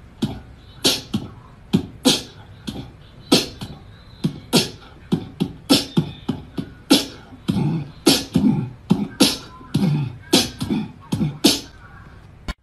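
Beatboxing: vocal percussion in a steady rhythm of sharp clicks and snare-like hits, with deeper sounds joining in from about seven seconds in.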